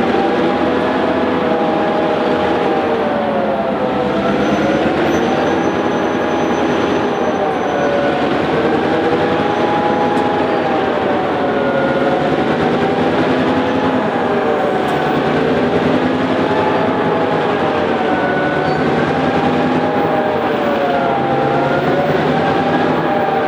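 Vintage Clyde-EMD diesel-electric locomotives working hard and crawling slowly uphill with a loaded grain train: a loud, steady engine drone with a whine that rises and falls in pitch every couple of seconds.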